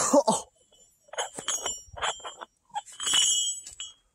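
Heavy rusted iron chain links clinking together as the chain is handled, a series of sharp metallic clanks that ring briefly, about six strikes in all.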